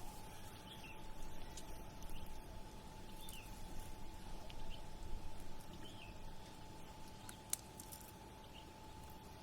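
Steady low wash of harbour water lapping at the pier under a distant city rumble, with a small bird chirping briefly every second or so over a faint steady hum. A single sharp click sounds about seven and a half seconds in.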